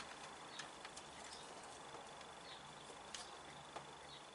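Faint, scattered clicks and light taps, about five over a few seconds, over a low steady background hum.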